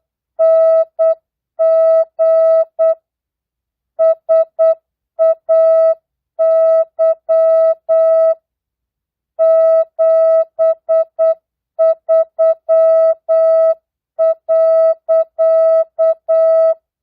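Morse code (CW) practice tone at 8 words per minute, non-Farnsworth: a steady beeping tone keyed into short dots and longer dashes, with gaps between characters and longer gaps between words. It stops shortly before the end.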